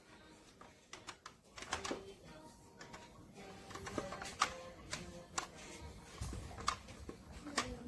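Plastic VTech Pop-a-Balls push bulldozer toy being handled: scattered light clicks and knocks, with a faint electronic toy tune.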